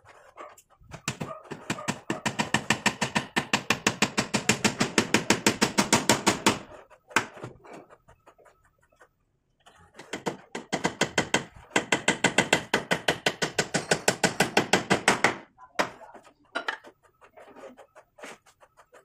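Claw hammer nailing into a wooden frame rail with quick, even, light strikes, several a second. Two runs of several seconds each, with a pause of about three seconds between them, then a few separate knocks.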